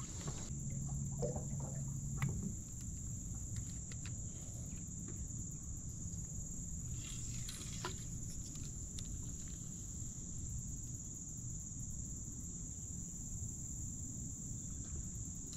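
Steady high-pitched chorus of insects from the riverside woods, with a few faint clicks. A low hum lasts about two seconds near the start.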